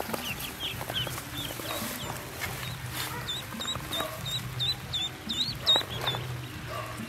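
Ducklings peeping: a run of short, high-pitched peeps, about three a second, stopping about a second before the end. A few knocks and rustles from hands and the plastic basket in the grass come among them.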